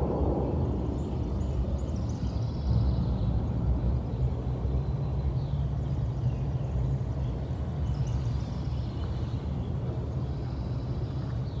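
Steady low machine hum with birds chirping now and then.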